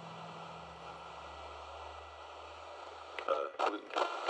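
Faint steady hiss, then from about three seconds in a Realistic AM/FM radio being tuned: snatches of voices cut in and out through its small speaker as the dial passes stations.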